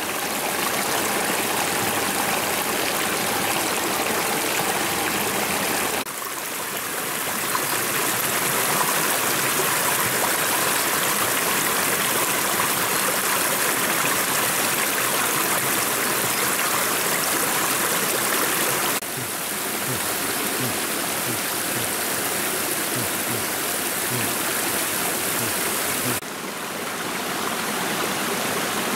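Small stream running over rocks: a steady rush of water. Abrupt edits about six, nineteen and twenty-six seconds in make the level dip briefly and the water sound change.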